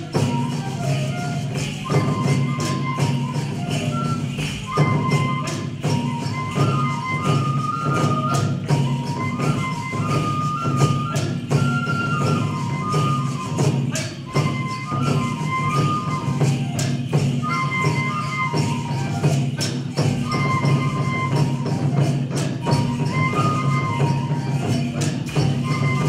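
Japanese folk dance music for a koma odori horse dance: a high bamboo flute plays a repeating stepwise melody over dense, quick percussion beats.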